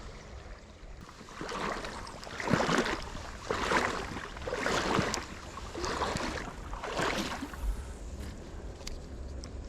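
Footsteps wading through shallow creek water: about six splashing strides, roughly a second apart.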